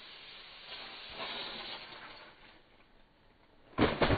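Gas hissing from a homemade plastic water-bottle rocket, then near the end two sudden loud blasts in quick succession as the rocket launches.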